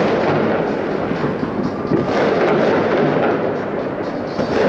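Fireworks salute fired from salute launcher vehicles: a dense, continuous rumble of overlapping bangs and crackles, a little louder from about two seconds in.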